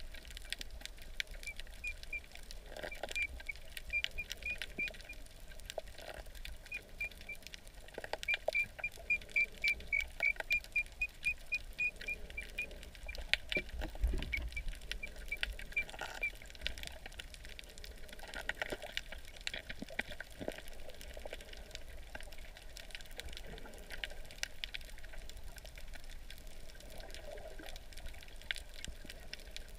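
Underwater sound picked up by a submerged camera: scattered sharp clicks and crackles with a faint low rumble, and runs of rapid high-pitched pips, a few a second, loudest in the first half.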